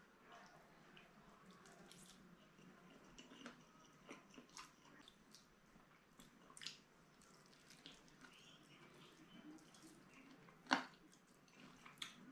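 Faint, close-miked eating sounds: roast chicken pulled apart by hand and chewed, with scattered soft wet clicks and smacks, and one sharper click near the end.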